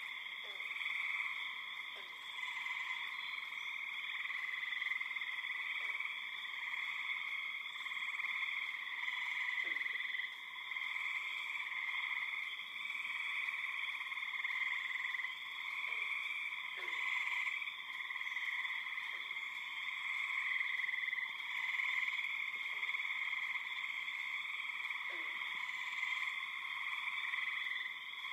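Dense, unbroken pond chorus of frogs, spring peepers among them, calling all at once in several pitch bands. Short faint falling notes cut through it every few seconds.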